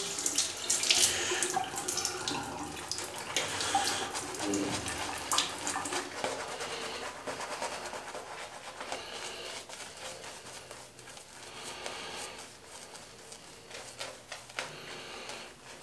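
Shaving brush being worked over a lathered scalp: a wet swishing of foam with many small crackles, coming in uneven strokes and growing fainter toward the end.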